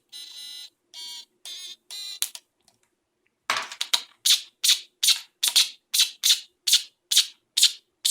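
Stylophone 350s synthesizer sounding four short buzzy notes. After a short pause comes a hissy pulse repeating a little over twice a second. The pulsing comes just as the power amplifier IC starts drawing excessive current.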